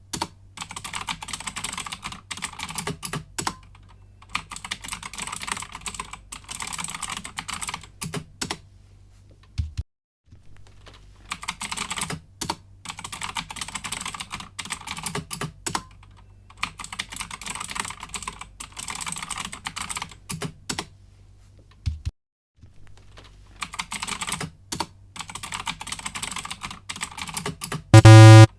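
Computer keyboard typing in runs of rapid key clicks, separated by short pauses and two brief silences. Near the end a short, very loud low buzz cuts in.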